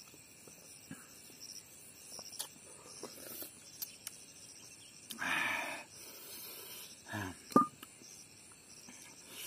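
Insects chirring steadily at a low level over a man eating: a short slurp-like sound about five seconds in as he drinks from a steel plate, and a brief sharp sound about seven and a half seconds in.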